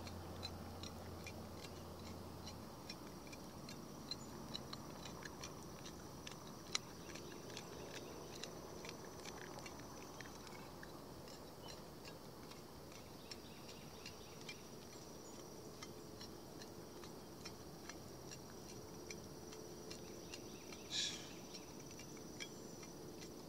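Faint outdoor background: a steady high insect trill with scattered small ticks and clicks, and one brief louder rustle near the end.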